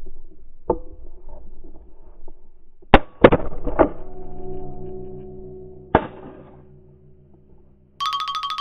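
Shotgun blasts at flying ducks: a quick volley of three shots about three seconds in and one more shot about six seconds in. Music starts near the end.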